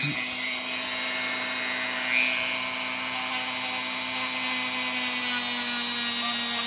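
Handheld high-speed rotary tool running steadily with a fine abrasive bit, polishing the surfaces of a Glock trigger connector. It makes a steady whine over a constant hum.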